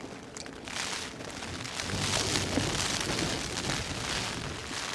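Heavy rain falling on a camping tarp, growing louder about a second in and staying heavy.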